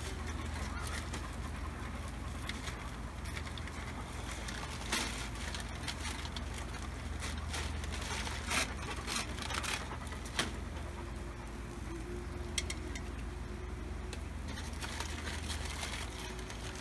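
Gas grill running with fish cooking on foil: a steady low burner rumble under a faint hiss, with a few sharp clicks and crackles scattered through.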